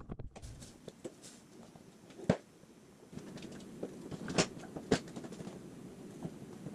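Several short, sharp clicks and knocks over faint background noise, the loudest about two seconds in.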